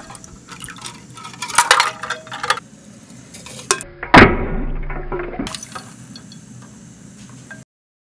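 A hot, steam-filled aluminium drink can plunged into ice water imploding with one sudden loud crunch about four seconds in, followed by a fading hiss: the steam condenses into a vacuum and air pressure crushes the can. Earlier, light clinks of ice and metal against the glass bowl.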